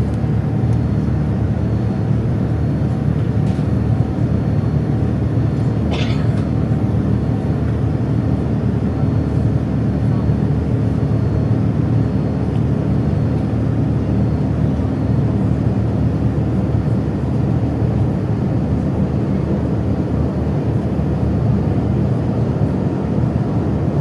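Boeing 787-9 cabin during takeoff: a steady, loud low rumble of the jet engines and airflow. A brief sharp click or chirp comes about six seconds in.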